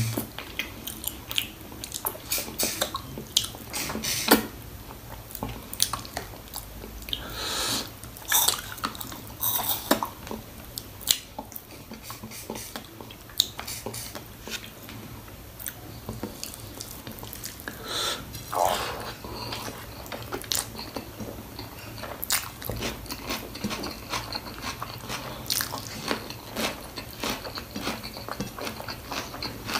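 A person eating mutton paya (goat trotters) close to the microphone: chewing with frequent wet clicks and mouth smacks at an irregular pace, and a few longer, noisier stretches around 8 and 19 seconds in.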